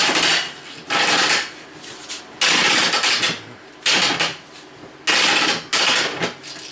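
Harbor Freight hand ratchet clicking in quick runs as its handle is swung back and forth, about six bursts of rapid pawl clicks. The ratchet has just been broken under a pipe extension.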